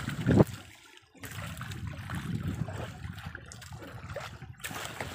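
Seawater sloshing and trickling against the side of an outrigger fishing boat, with a loud thump just under half a second in.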